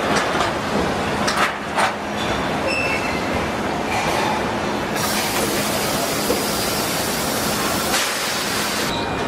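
Assembly-line factory noise: a steady machinery din with several metallic clicks and knocks in the first two seconds. From about five seconds in a loud, even hiss sounds and cuts off suddenly near the end.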